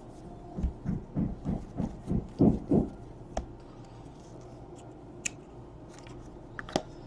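Trading cards being handled. A quick run of about eight soft, low rustling thumps comes first, then a few sharp clicks, each heard alone.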